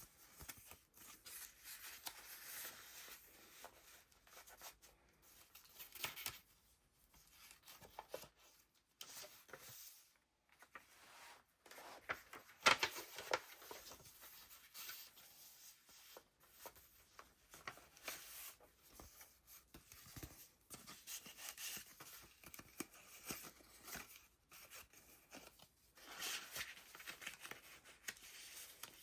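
Pages of a handmade paper junk journal being turned and handled: irregular rustling and swishing of paper, the loudest swish about twelve and a half seconds in.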